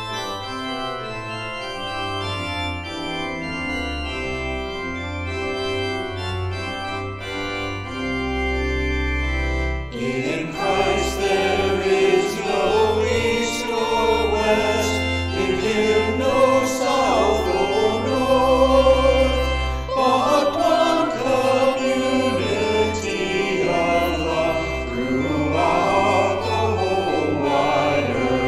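Organ playing sustained chords as a hymn introduction, then singing voices come in over the organ about ten seconds in.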